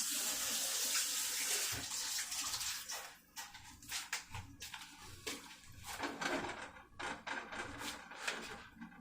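Spiced chicken cooking in oil in a covered pot on the stove: a steady sizzling hiss for about three seconds, then dying down to scattered pops and crackles.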